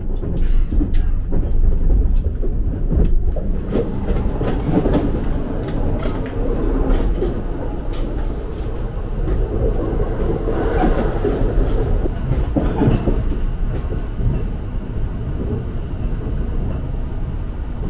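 Running noise of the Hitachi limited express, an E657-series electric train, heard from inside the carriage: a steady low rumble of wheels on rails with scattered clicks.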